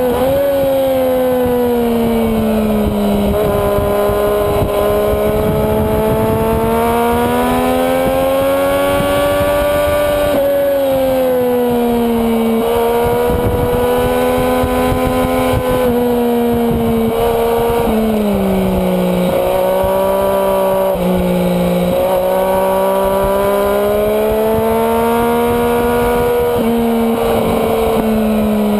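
Sport motorcycle engine at high revs, its pitch rising and falling through the corners, with several abrupt jumps in pitch at gear changes. Heavy wind rush on the onboard microphone runs underneath.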